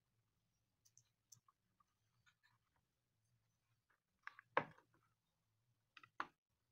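Near silence broken by faint clicks and light taps of hands fitting an induction cooktop's coil and its wires into the plastic base, with one louder knock about four and a half seconds in and a few more clicks about six seconds in.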